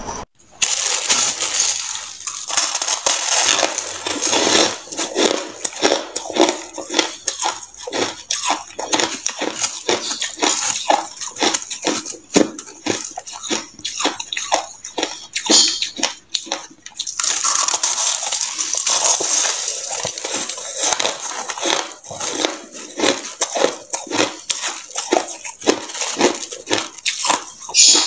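Crushed ice being bitten and chewed close to the microphone: a rapid run of crisp crunches, with denser grinding stretches near the start and about two-thirds of the way in.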